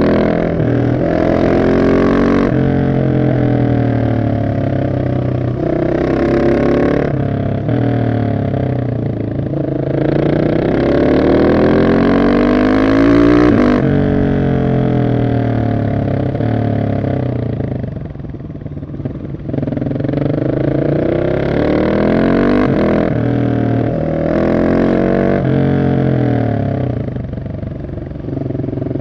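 Husqvarna 701 SM supermoto's single-cylinder engine breathing through an Arrow exhaust with the catalytic converter removed, revving hard up through the gears. Its pitch climbs and drops back at each upshift, and it eases off the throttle about 18 seconds in and again near the end.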